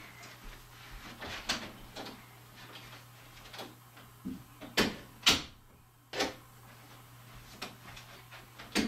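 Scattered sharp knocks and clicks of someone moving about offscreen and handling a door, over quiet room tone with a low steady hum. The loudest pair comes about five seconds in and another pair near the end.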